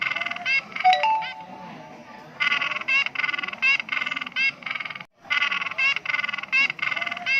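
A bird calling in fast runs of harsh, pitched chattering notes, about five a second. The same call phrase plays again and again with short pauses.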